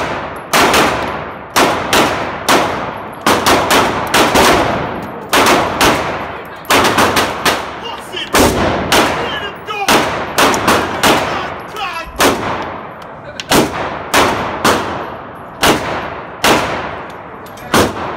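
Pistol shots fired one after another in an indoor shooting range, about thirty in all, mostly around two a second with short pauses between strings. Each shot is a sharp crack with a short echo off the range walls.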